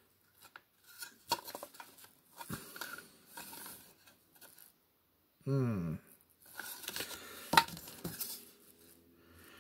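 Hard plastic toy blast-shield pieces being handled and knocked against each other: scattered clicks and knocks with light rubbing between them, the sharpest knock about two-thirds of the way through. A short hummed voice sound comes about halfway.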